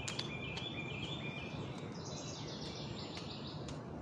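Birds chirping in repeated short phrases over a steady outdoor background noise, with a few faint clicks.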